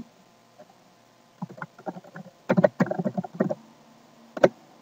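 Computer keyboard typing: a quick run of keystrokes, then one louder key press near the end.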